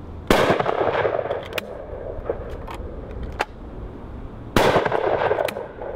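12-bore over-and-under shotgun fired twice, about four seconds apart: one barrel into a leather penetration target, then one into a pattern card. Each shot is a sharp report followed by a ringing echo.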